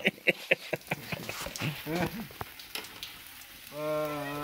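Lit sparklers crackling with a rapid run of sharp little pops and sizzle. Near the end a steady, even-pitched drone begins.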